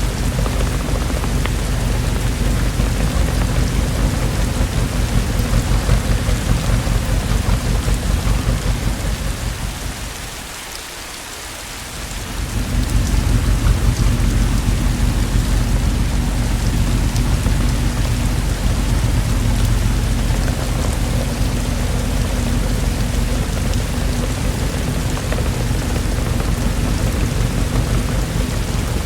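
Steady rain with a deep rumble of thunder beneath it. About ten seconds in, the low rumble and the overall level sink away for a couple of seconds, then swell back.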